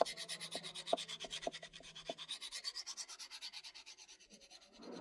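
Victorinox knife blade stroked quickly back and forth along a pocket sharpener, an even rasp of about six or seven strokes a second that fades out near the end, with a few light clicks in the first two seconds. The edge is being worked on its second side to raise a burr.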